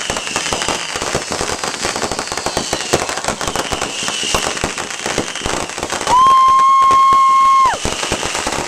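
Fireworks going off in a dense barrage of crackling and popping, with several short whistles gliding down in pitch. About six seconds in, a loud steady whistle holds one pitch for about a second and a half and then cuts off.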